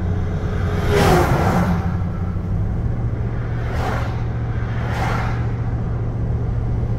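Steady low engine and road drone inside a moving vehicle at highway speed. An oncoming transport truck passes with a loud whoosh and falling tone about a second in, followed by two shorter whooshes of oncoming vehicles near four and five seconds.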